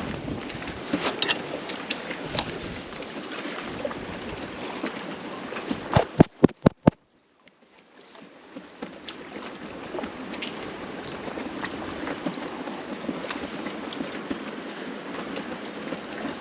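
Water lapping with wind on the microphone, dotted with small clicks; about six seconds in, a quick run of five loud knocks, then the sound drops out for about a second and fades back in.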